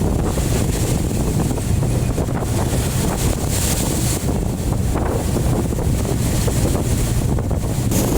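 Strong wind buffeting the microphone aboard a ship in rough sea, over the steady rush of waves against the hull, with a brief brighter hiss of spray about three and a half seconds in.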